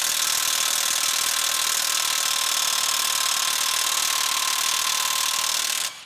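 Cordless 3/4-inch impact wrench hammering on the 1 3/4-inch axle nut of a truck's front hub to break it loose, a steady loud rattle that cuts off sharply near the end.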